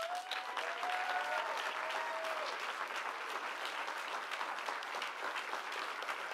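Audience applauding steadily, with a few voices calling out over it in the first two seconds or so.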